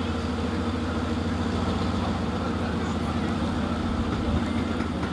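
A heavy engine idling steadily: a low, even rumble with a regular pulse and no change in pitch.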